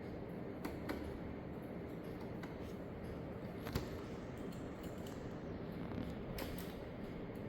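A steady low background hum and hiss with a few short, faint clicks and taps, the sharpest about halfway through, like small hard parts being handled.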